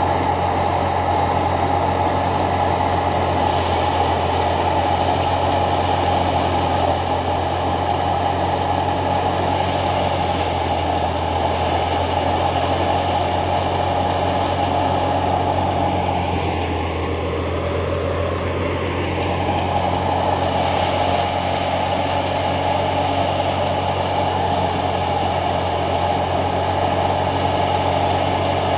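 Massey Ferguson tractor's diesel engine running steadily, driving a wheat thresher whose drum and fan keep up a constant hum, with a slight dip in level a little past halfway.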